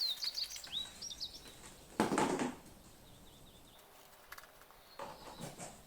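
Small birds chirping in the background during the first second, then two brief rustles of parts or packaging being handled, about two seconds in and again near the end.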